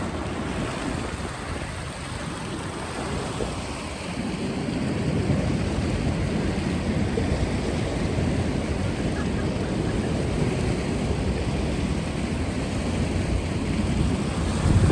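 Wind buffeting the microphone: a steady low rumble that gets louder about four seconds in.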